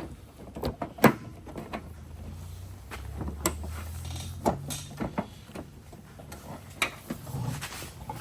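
Plastic headlight housing clicking and knocking against the truck's front body as it is pushed into place and lined up: a string of separate sharp knocks, with a low rumble in the middle.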